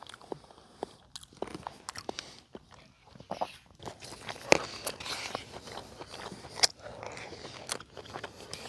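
A person eating close to the microphone: chewing and biting, heard as irregular short clicks and smacks.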